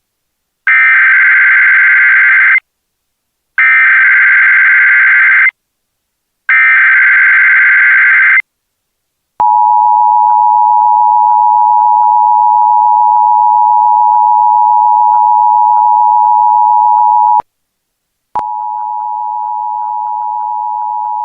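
Emergency Alert System broadcast tones: three screeching bursts of digital header data, about two seconds each with short gaps, then the steady two-tone attention signal for about eight seconds, which breaks off briefly and resumes at a lower level. These tones mark the start of an Amber Alert broadcast.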